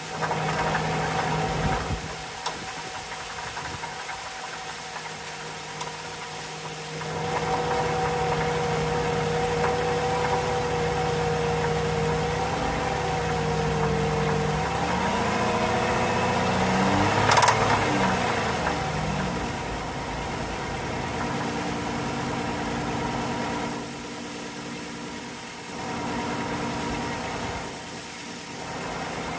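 Chrysler 3.6 Pentastar V6 running with a tapping and ticking noise from the engine. It gets louder about seven seconds in, its pitch shifts in the middle, and there is one sharp click partway through.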